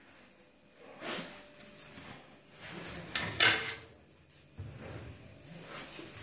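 Kitchen unit drawers sliding open and shut in several rough scraping runs, the loudest about three and a half seconds in.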